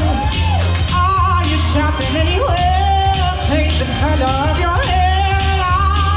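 A woman singing live into a handheld microphone over a recorded Italian backing track, amplified through a PA, her voice gliding and holding long notes over a steady bass line.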